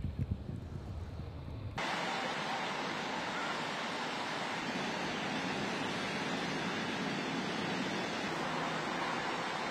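Heavy downpour with wind buffeting the microphone, its deep rumble giving way suddenly about two seconds in to a steady, even rushing hiss of rain and water.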